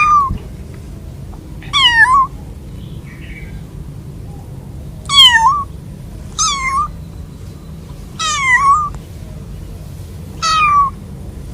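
Young kitten meowing, separated from its mother: six short, high-pitched calls, each bending in pitch, spaced about one to two seconds apart over a steady low hum.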